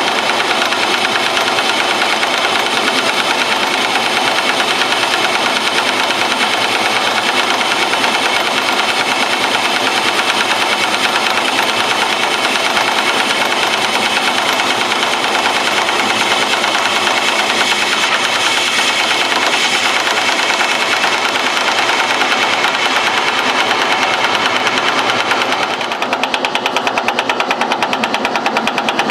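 Metal lathe taking a facing cut with a carbide tool, with a rapid, even rattle throughout. The out-of-round workpiece is knocking against the pins of the steady rest as it turns. The noise gets a little softer about three seconds before the end.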